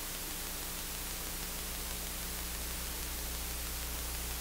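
Steady hiss with a low, even hum underneath: the background noise of the sermon recording.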